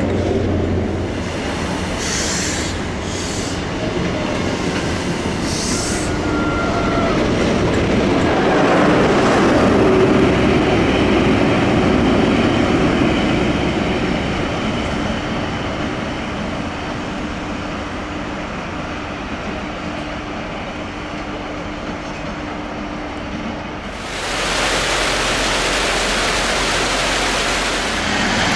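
A train running past on the rails, with brief high wheel squeals in the first six seconds. It is loudest about ten seconds in and then eases off. Near the end a louder, steady rush starts suddenly.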